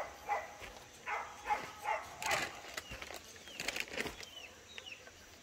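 Chickens calling: short clucks and several high, falling chick peeps, with a brief rustle about two seconds in.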